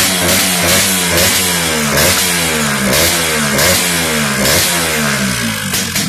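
Suzuki X3 motorcycle engine revved in repeated throttle blips, about one a second, its pitch jumping up sharply and sliding back down each time, through an aftermarket expansion-chamber exhaust.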